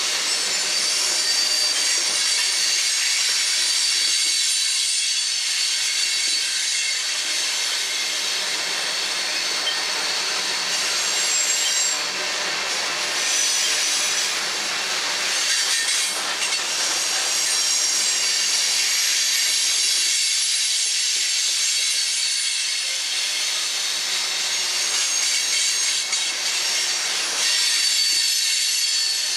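Covered hopper cars of a unit grain train rolling past, their wheels squealing steadily with high-pitched screeching tones over the running noise of the cars.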